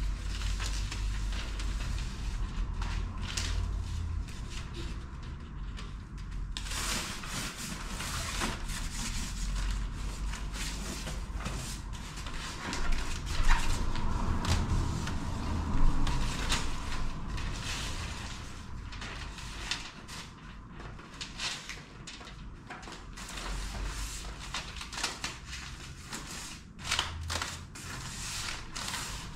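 Irregular brushing and rustling strokes, with occasional knocks, as the insulation-board floor is swept out and cleared.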